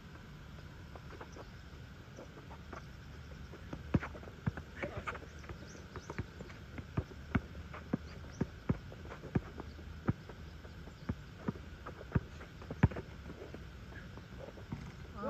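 Basketball being dribbled on an outdoor asphalt court: a string of sharp bounces, roughly two a second, starting about four seconds in.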